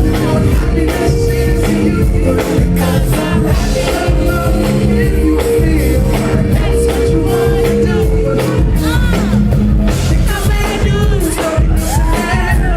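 Live pop-soul song with singing over a steady beat and heavy bass, played loud through a concert PA and picked up by a phone microphone.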